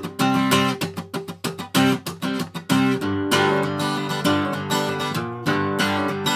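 Background music led by strummed guitar, with quick, even strokes.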